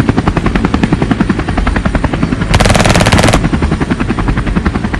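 Helicopter rotor chopping in a rapid, steady pulse, with a louder, harsher stretch of under a second about two and a half seconds in.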